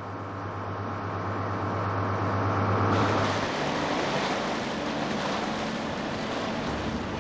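A steady drone from a cockle boat's engine grows louder. About three seconds in it gives way to the rush and splash of sea water churning along the moving boat's hull, which continues.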